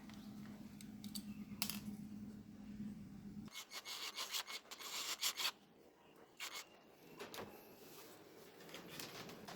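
Rubbing and scraping on small parts, with scattered sharp clicks and taps. A low steady hum runs under it and cuts off suddenly about a third of the way in.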